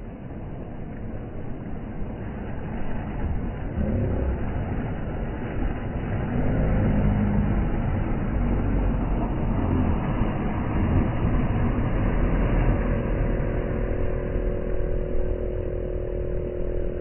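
Boat outboard motors running over surf washing onto the beach, the engine sound growing louder about four seconds in; a steady engine tone joins near the end.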